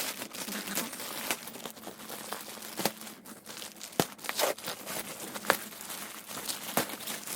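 Packaging crinkling and tearing by hand as a package is unwrapped, with irregular sharp crackles and rustles throughout.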